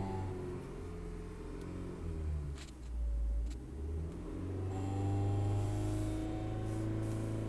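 Toyota Corolla AE112 engine running under revs. The revs drop for a couple of seconds, with two short clicks, then rise again about five seconds in and hold steady. The owner hears a strange noise at around 3,000 rpm, which he takes to come from the gearbox.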